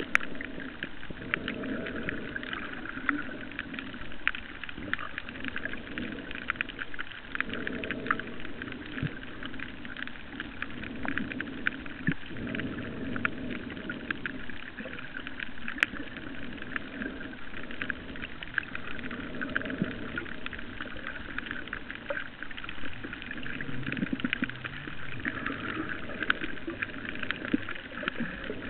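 Underwater reef ambience picked up by a camera below the surface: a dense, steady crackle of fine clicks over an uneven low rumble of moving water.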